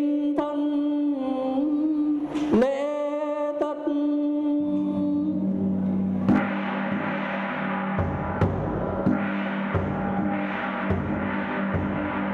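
A ritual gong struck twice, each stroke ringing on with a slight upward bend in pitch. From about halfway, ceremonial music with a steady drone and spaced drum strokes takes over.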